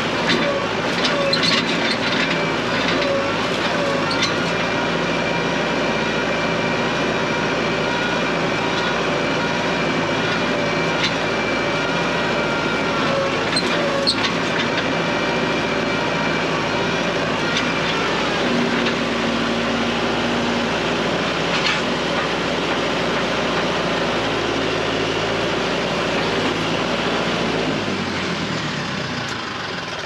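Tractor engine running steadily while the tractor is driven, with clanks and rattles from the loader and frame. Near the end the engine slows and is shut off.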